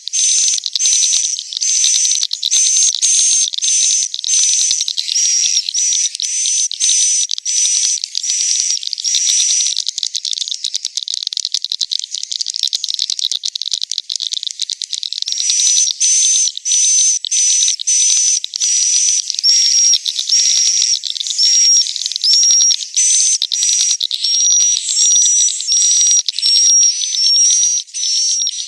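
Swiftlets calling inside a swiftlet house, a roosting lure recording: a dense, high twittering chatter with short whistled notes repeating about one and a half times a second. Midway the whistled notes stop for a few seconds and only the continuous chatter remains.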